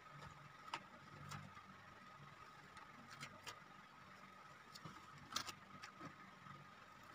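Faint rustling and short clicks of cardboard and a roll of wood-grain adhesive wallpaper being handled, the sharpest taps about a second in and near the end, over a steady faint hum.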